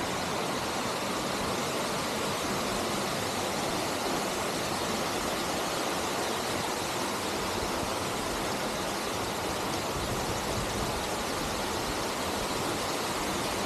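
Waterfall crashing into a large natural pool: a steady, even rush of falling water.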